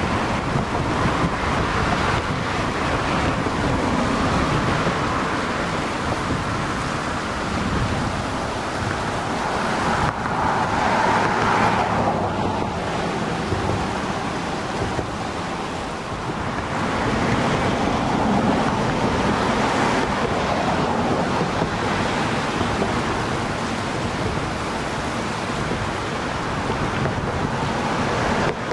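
Steady rushing of fast-flowing floodwater in the swollen Fitzroy River, mixed with wind buffeting the microphone, rising and falling gently.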